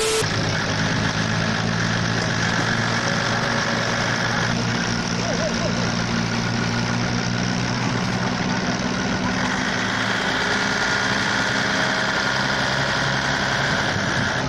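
A short burst of static hiss at the very start, then a heavy dump truck's diesel engine running steadily while its raised bed tips, with a higher whine that drops out about four seconds in and returns near ten seconds.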